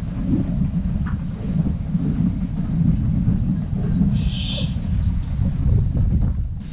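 Sumpter Valley Railroad train rolling past, its freight cars making a steady low rumble, with a short hiss about four seconds in.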